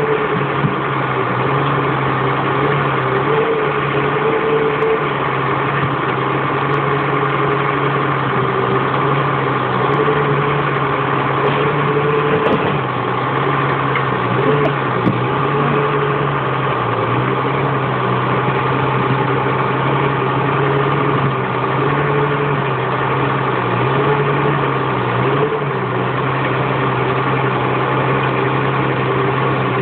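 Forestry forwarder's diesel engine running steadily while its hydraulic crane swings and works the grapple; the engine note dips briefly a few times.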